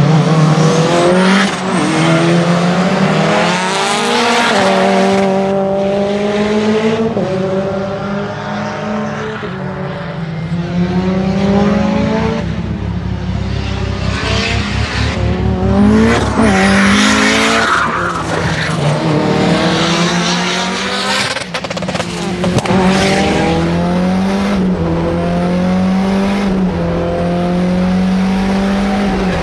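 Turbocharged 2.0-litre four-cylinder of a tuned, roughly 500 hp Lancia Delta HF Integrale under hard acceleration. The revs climb and drop again and again through gear changes, with a high turbo whistle heard near the start and near the end.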